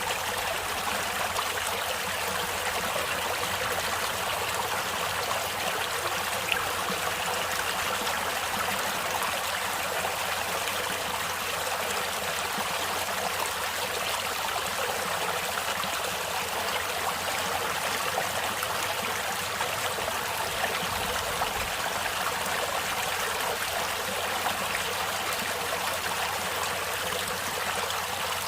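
A stream of water flowing and trickling steadily, with no pauses.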